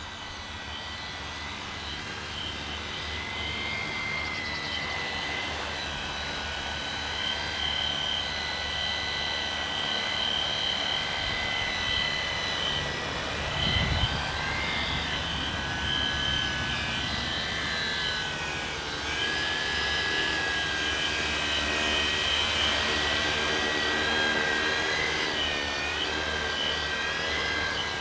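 Tricopter's three brushless electric motors and propellers whining in flight, the pitch wavering up and down as the throttle is worked. A brief low thump about halfway through.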